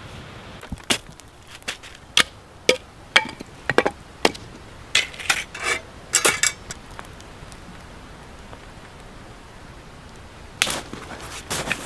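A series of irregular sharp knocks and clacks of hard objects striking each other, some with a short ring. They come in a cluster during the first half and again near the end.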